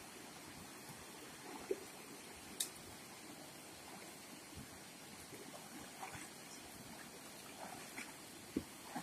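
Faint, steady rush of a shallow river flowing over stones, with soft splashes from a water buffalo wading through it and a few short, sharp clicks.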